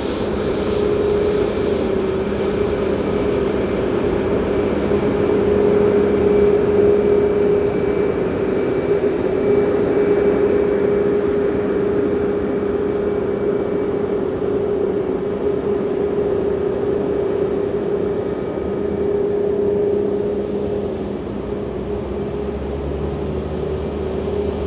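Boeing 737 MAX 8's CFM LEAP-1B turbofan engines running steadily at idle as the jet taxis in to the gate, a constant rush with a held droning tone. A deeper hum joins near the end.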